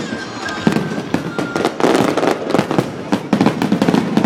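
Fireworks display with many shells bursting in quick, overlapping bangs and crackles, and a few faint thin whistles among them.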